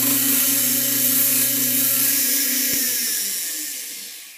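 Belt sander grinding rusted steel of a pistol part, a steady motor hum under a high hiss. The hum drops out about two seconds in and the sound dies away as the sander winds down.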